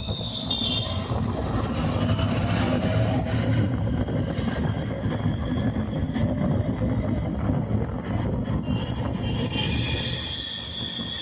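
Honda Unicorn motorcycle engine running steadily, louder from about a second in and easing off near the end. The owner takes a noise from it for a fault.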